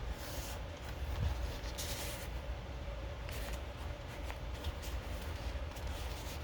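Paper pages and tags of a handmade junk journal rustling as they are turned and handled, in several short bursts over a low steady hum.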